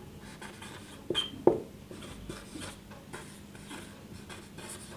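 Felt-tip marker squeaking and scratching on a whiteboard as a word is written, in short strokes with a couple of louder ones about a second and a half in.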